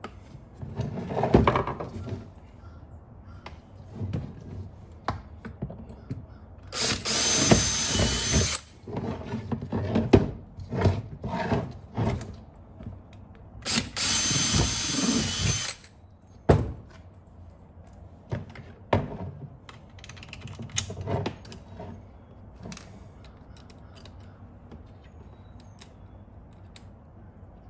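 A power drill running twice for about two seconds each, a steady whir, with knocks and clatter of tools and parts being handled between and around the runs.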